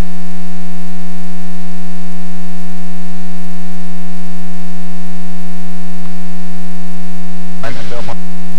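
Loud, steady electrical hum with a stack of evenly spaced overtones, level in pitch. A short burst of noise breaks in about eight seconds in.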